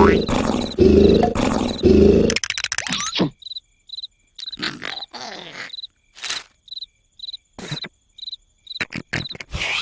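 Cartoon sound effects. Three loud, rumbling snores fill the first two seconds. They give way to quiet with a cricket chirping about twice a second and a few short breathy swishes.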